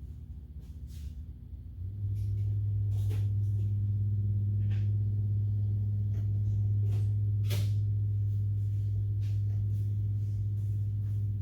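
A steady low hum from a running machine comes on about two seconds in and holds, with a few light clicks and taps of small metal tools and parts being handled.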